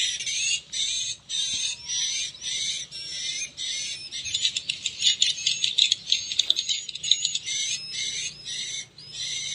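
Recorded edible-nest swiftlet (walet) calls, the 'inap' roosting lure sound used to draw swiftlets into a swiftlet house, played through the horn tweeters of a Piro MW-88 swiftlet sound player. The calls are high chirps, two or three a second, with a denser run of rapid clicking calls in the middle.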